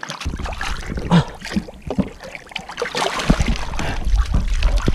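Water splashing and sloshing as a large snapping turtle thrashes at the surface and is hauled up out of the river by its tail, with irregular splashes and water streaming off it. A low rumble runs underneath from a moment in.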